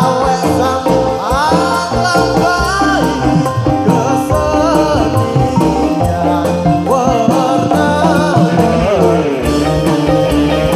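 Loud live band music accompanying a topeng ireng dance: a melody line that slides up and down in pitch over a dense accompaniment with steady bass and percussion.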